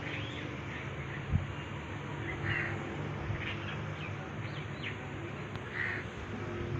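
Birds calling, with scattered short chirps and two louder calls, over a steady low hum; a single thump about a second and a half in.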